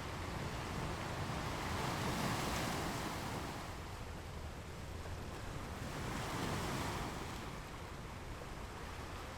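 Ocean surf: waves washing in, two swells of rushing noise about four seconds apart over a steady low rumble.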